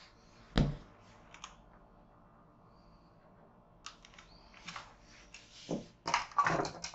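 A lump of bread dough set down on a wooden worktop with a single soft thud about half a second in. Light clicks and taps follow as a plastic digital kitchen scale is handled and moved off the counter, with a cluster of knocks and rustles near the end.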